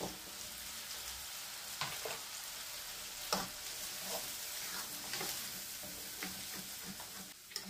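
Ground spice paste of shallot, garlic and candlenut, with galangal, ginger, lemongrass and salam leaves, sizzling in oil in a wok as a spatula stirs it. There are a few sharper scrapes of the spatula against the pan.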